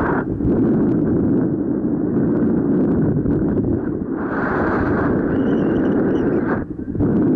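Wind buffeting the microphone of a paraglider's camera in flight: a loud, steady rushing rumble that grows brighter for a couple of seconds around the middle and drops briefly near the end.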